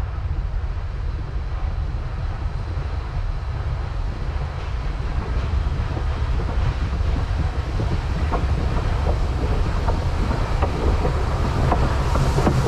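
Steam locomotive approaching along the track, its rumble growing steadily louder as it nears, with wind buffeting the microphone. Faint sharp clicks start about two-thirds of the way in, and the sound brightens near the end as the engine draws close.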